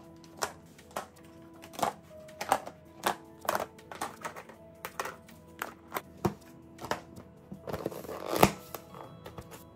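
Plastic lids being set onto plastic food-storage containers and pressed shut: a run of sharp, irregular clicks and taps, with a louder snap and rustle about eight seconds in. Soft background music plays underneath.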